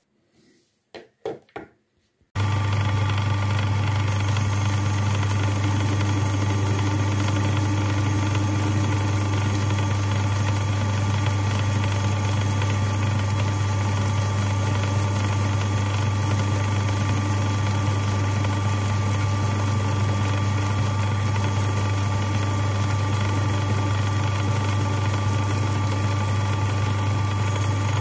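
Metal lathe running steadily with a low hum and several steady higher tones while a grooving tool cuts a groove into a small spinning metal workpiece. It comes in abruptly about two seconds in, after a few faint clicks.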